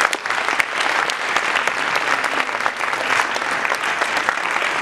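Audience applauding, many hands clapping at once in a dense patter.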